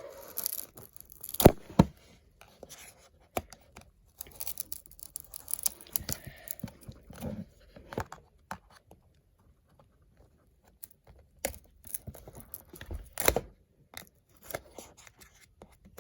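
Plastic packaging being torn and crinkled as a sealed trading card box is opened, with sharp clicks and knocks from handling the plastic box; it pauses briefly in the middle.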